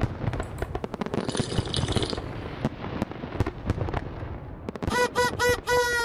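Cartoon party sound effects: a rapid crackle of firework-like pops, then a party horn tooting three short times and holding one long note near the end.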